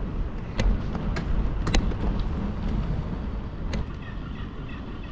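Bicycle rolling over paving and brick blocks: a steady low rumble with sharp rattles and knocks from the bike, several in the first two seconds and one more near four seconds in.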